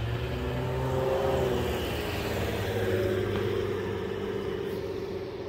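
A motor vehicle engine running, a steady low hum whose pitch drifts slightly and swells a little midway.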